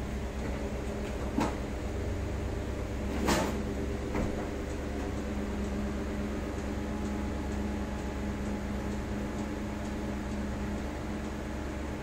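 Electric linear actuator's motor humming steadily as it slowly raises a Corvette hood, with two sharp clicks about one and a half and three and a half seconds in.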